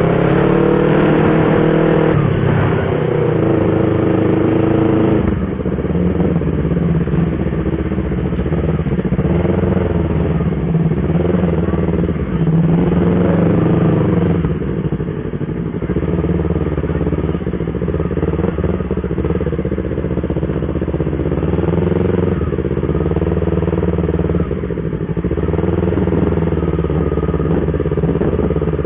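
Yamaha R25 motorcycle's 250 cc parallel-twin engine running under way, its note rising and falling with the throttle and dropping back at several points, as at gear changes.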